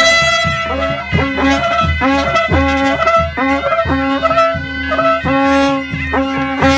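Instrumental music: a held, pitched lead melody over a steady low beat.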